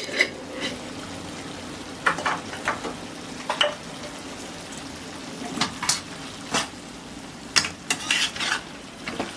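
Mutton liver frying in oil with freshly added spice powders, a steady sizzle, while a spatula stirs it, scraping and clinking against the pan at irregular moments.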